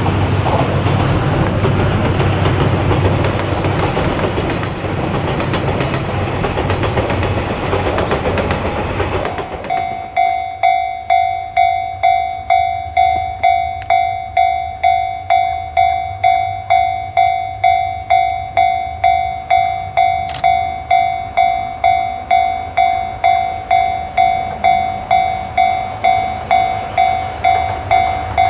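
A train passing with a broad rumbling rush of wheels on rails that ends after about nine seconds. A railway level-crossing warning bell then rings on, about twice a second, each strike fading before the next.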